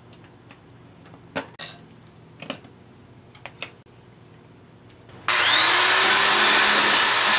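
A few light clicks and knocks as an old tire is worked off a bicycle rim by hand. About five seconds in, a power-driven wire brush wheel starts up with a short rising whine and then runs loud and steady, scrubbing rust off the rim.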